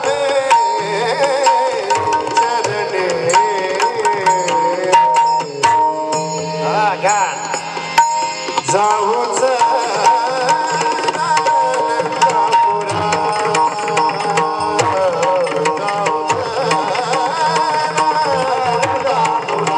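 Marathi bhajan music: a voice singing a wavering, ornamented melody over steady held notes, with continuous hand-drum playing.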